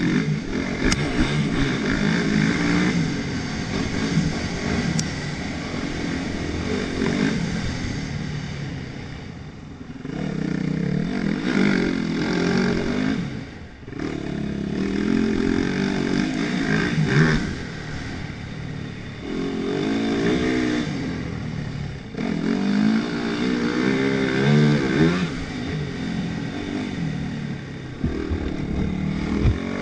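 Yamaha YZ450F's single-cylinder four-stroke engine revving hard as the bike accelerates, its pitch climbing again and again through the gears. The throttle is briefly rolled off about ten, fourteen and twenty-two seconds in, before the engine picks up again.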